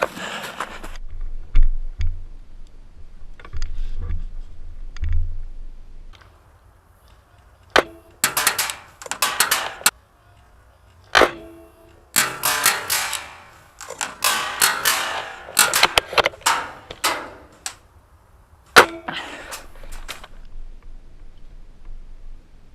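Airsoft gunfire: a scattered series of sharp shots and clicks, with clusters of rustling and clattering bursts between them and a few low thuds near the start.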